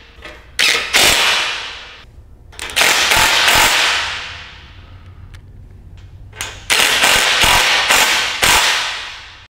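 Ridgid cordless impact driver driving metal screws into the corner of an aluminium gangway frame, hammering in several short bursts, each trailing off with echo.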